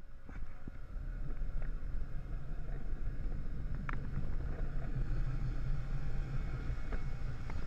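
Low, uneven rumble and wind on the onboard microphone of a switched-off Formula One car as it is rolled back into the garage, with a few light knocks and clunks.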